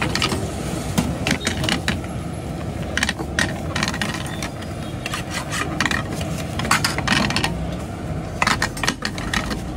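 Metal spatula scraping and clattering against a steel frying pan in quick runs of strokes while an omelette is cooked. Under it runs a steady low rumble.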